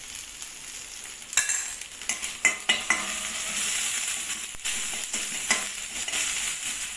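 Ginger-garlic paste with curry leaves and dried red chillies sizzling in hot oil in a stainless steel kadai, stirred with a spoon that clicks and scrapes against the pan several times. The sizzling gets louder a little over a second in.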